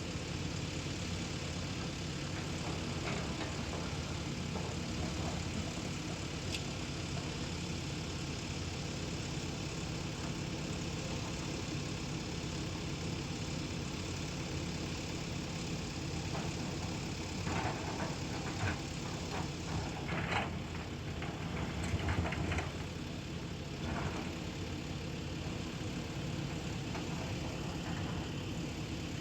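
Earthmoving machine's diesel engine running steadily, with a run of short knocks and clatters a little past the middle.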